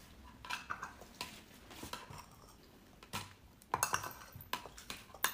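Spoon clinking and scraping against a metal tin of canned dog food and tapping on the food bowls as meat is scooped out, in short irregular clinks with a quick cluster a little before the four-second mark.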